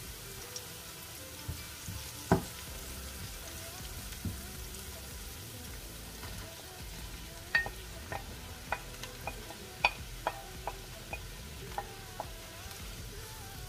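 Diced onions sizzling steadily in oil in a frying pan. There is a sharp knock a little over two seconds in. From about halfway through, a run of sharp clicks and knocks comes as a wooden spoon pushes sliced mushrooms off a plate into the pan.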